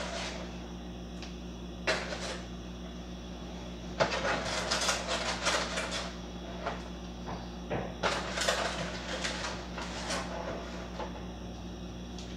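Kitchen clatter from someone working off to the side: sharp knocks near the start and about two seconds in, then two spells of busy clattering and rustling, like cupboard doors and cookware being handled, over a steady low hum.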